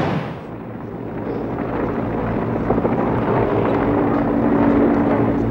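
Helicopter flying, its rotor and engine noise growing louder, with a steady hum joining about four seconds in.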